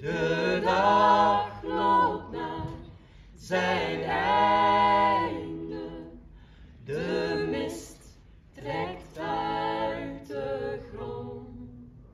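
A small mixed group of women's and men's voices singing a cappella together, in held phrases with short pauses for breath between them.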